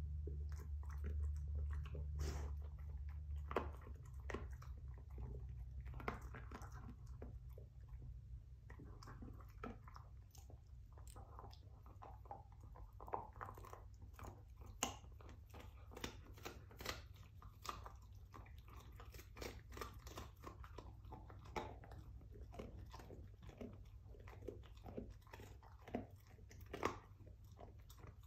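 Dog chewing a rawhide bone: irregular sharp crunches and cracks as its teeth break the hide. A low steady hum sits underneath and is louder for the first few seconds.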